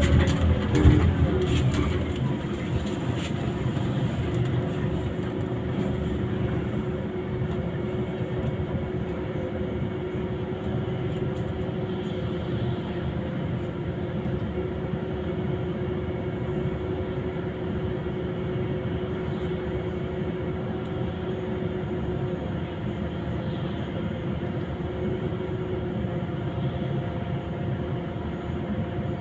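Interior of a Scania Citywide CNG city bus under way: steady road and engine rumble with a held whine over it. In the first second the sound is louder and the whine drops in pitch before settling.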